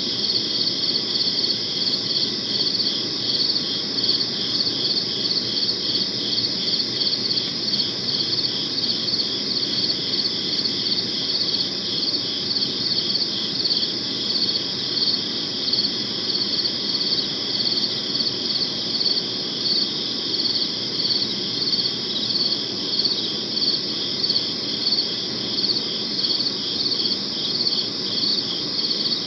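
Crickets chirping in a steady, even pulse, at two pitches, over a faint low background haze.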